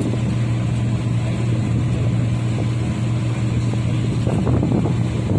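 Steady drone of a turboprop aircraft in flight: a constant low hum over a broad, even rushing noise, with no change in pitch.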